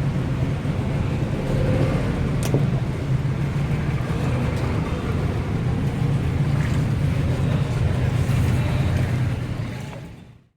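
Steady low engine drone with a brief click about two and a half seconds in, fading out near the end.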